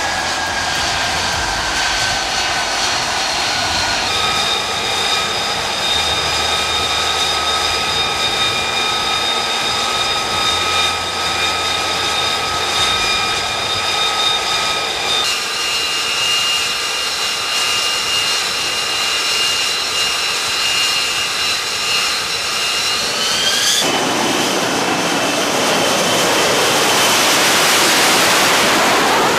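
F-35B jet engine with a steady high turbine whine, its pitch shifting a couple of times. About twenty-four seconds in, the whine rises as the engine spools up and gives way to a loud rushing jet noise that builds as the jet rolls past on its take-off run.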